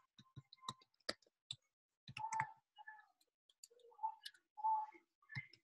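Faint, irregular keystrokes on a computer keyboard as a line of text is typed.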